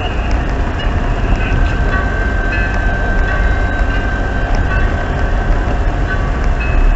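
Steady low rumble of a moving vehicle, with a thin high-pitched squeal for a few seconds in the middle.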